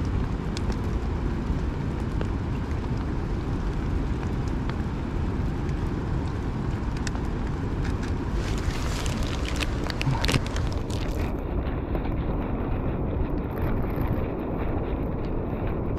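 Wind buffeting a body-worn action camera's microphone over the hiss and rumble of traffic on a wet city street. A few short clicks come around nine to ten seconds in, and the sound turns duller about eleven seconds in.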